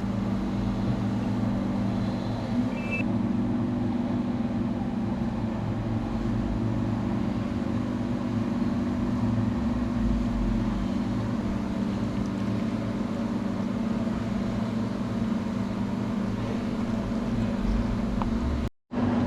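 A steady low mechanical hum holding one pitch, with a faint hiss above it; it cuts out for a moment near the end.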